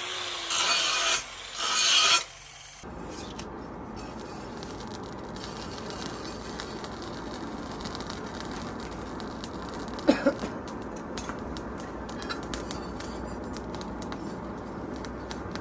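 Angle grinder cutting into the steel cleaver blade in short bursts that stop about two seconds in. Then a steady rush of a charcoal forge fire with faint crackling, and a single metal clank about ten seconds in.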